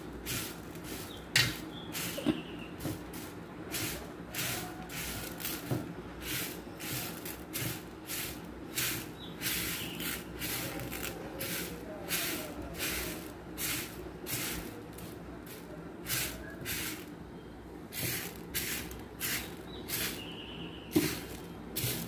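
Dry jowar (sorghum) grains being raked by hand across a stainless steel plate, a rustling swish with each stroke, repeated about twice a second, as the grain is hand-sorted for grit before milling. A louder clack comes about one and a half seconds in.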